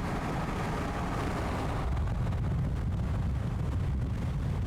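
Wind buffeting the microphone: a steady low rumble with rushing noise above it.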